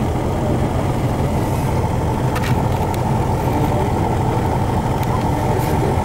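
Steady low rumble of a tour bus engine, heard from inside the cabin.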